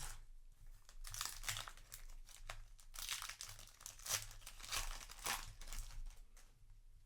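Foil trading-card booster pack wrapper being crinkled and torn by hand, in a run of irregular rustling bursts that thin out near the end.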